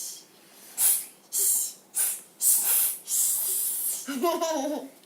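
Children imitating a snake with their mouths: a string of short hisses, then a longer one about three seconds in. Near the end comes a brief child's voice.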